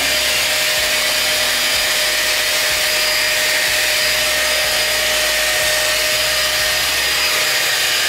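5-in-1 hot air styler, a copy of the Dyson Airwrap, running with its fan blowing steadily: a rush of air with a steady whine over it.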